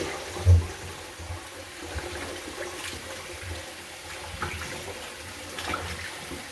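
Cold water running and splashing in a kitchen sink as a whole raw chicken is washed by hand, with one low knock about half a second in.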